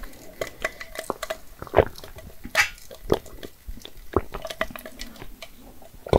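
Sipping an iced drink through a straw: short slurps and swallowing gulps, with ice cubes clinking in the glass.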